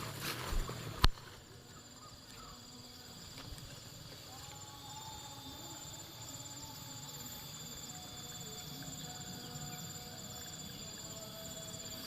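Outdoor forest ambience: steady high-pitched insect buzzing, with a faint drawn-out animal call about four seconds in. A single sharp click about a second in is the loudest sound.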